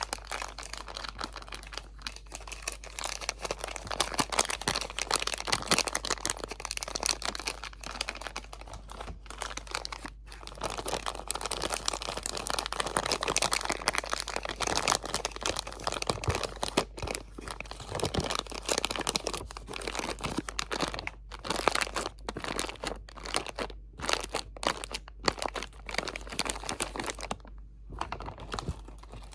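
Crinkly material crumpled and scrunched right up close to the microphone: dense, continuous crackling, broken by a few short pauses near the end.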